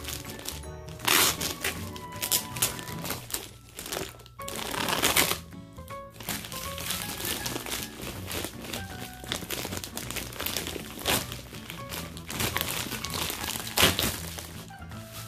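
Clear plastic wrapping crinkling and rustling in irregular bursts as it is pulled off a folded air mattress, over steady background music.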